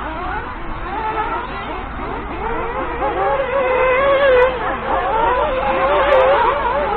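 Several 1/8-scale nitro RC buggies' small two-stroke glow engines screaming around the track together, their overlapping whines rising and falling in pitch as they accelerate and lift off through the corners.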